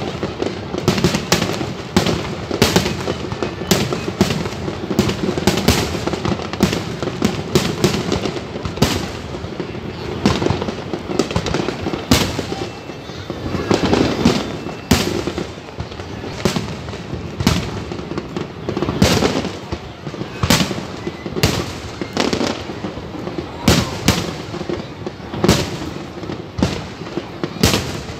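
Aerial fireworks display: shell bursts going off in quick succession as sharp bangs, over continuous crackling.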